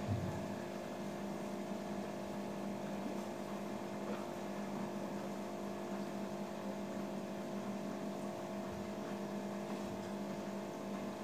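A steady low hum made of several fixed tones over a faint even background noise, unchanging throughout.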